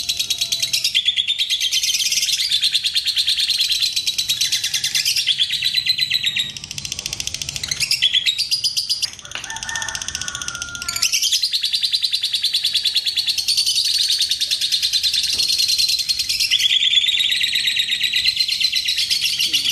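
Fischer's lovebird singing a long 'ngekek': a continuous, very rapid, high-pitched chattering trill, briefly broken and changing in pattern about halfway through before running on.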